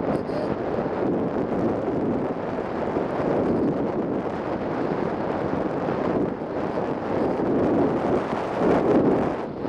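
Wind rushing over the onboard camera's microphone on a 3-metre Ka8b scale model glider in flight: a steady low rushing noise that swells briefly near the end.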